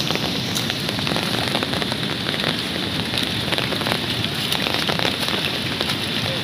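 Heavy rain pouring down, with many drops striking close by as sharp taps over a steady hiss.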